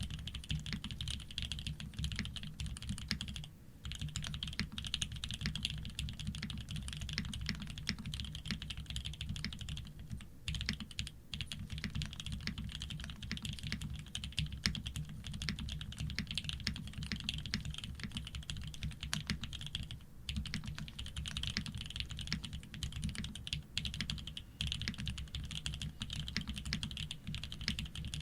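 Continuous fast typing on a custom 60% mechanical keyboard (Shark60) with Fierce Girl switches, PBT keycaps and an aluminium plate without foam, with a few brief pauses.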